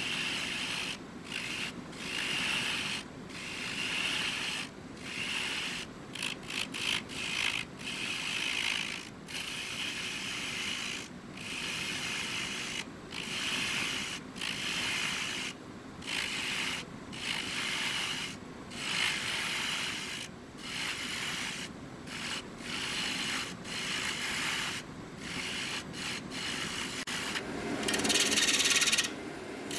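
A lathe tool cutting a spinning segmented wooden bowl blank: a steady shearing hiss of wood in repeated passes of a second or two, each broken by a short gap as the tool is lifted off, the cut getting louder near the end.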